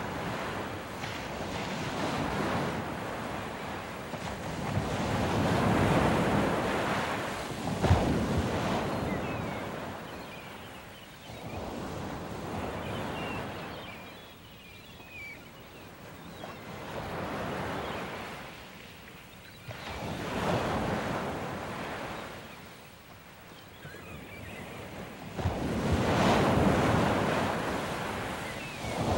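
Ocean surf: waves breaking and washing in, the rush swelling and fading every few seconds, with one sharper crash about eight seconds in.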